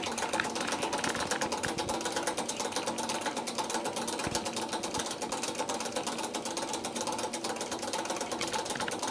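Grundfos circulation pump running with a steady electric hum and a fast, continuous rattling clatter. The rattle comes from its combined rotor and impeller wobbling on a worn bearing and shaft.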